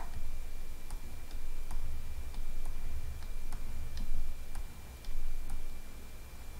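Irregular light clicks and taps, about one or two a second, from a stylus on a drawing tablet as lines are drawn, over a low steady hum.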